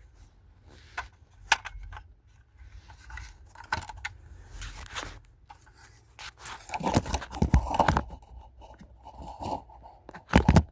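Hard plastic clicking and scraping as the power door-lock switch and its trim are handled and pried at. Single sharp clicks are scattered throughout, with a busier run of scraping and knocking a little past the middle and a sharp knock near the end.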